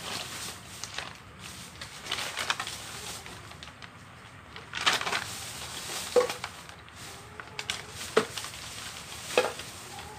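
Plastic packaging rustling and crinkling as store goods are handled and sorted, with three sharp knocks of items being set down in the second half.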